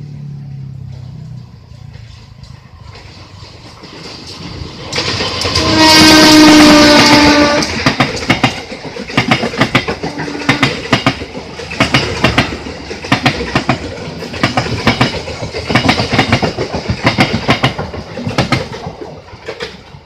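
CC 203 diesel-electric locomotive's horn sounding one loud blast of about two and a half seconds, about five seconds in. Then the passenger coaches pass with a steady clickety-clack of wheels over the rail joints, fading near the end.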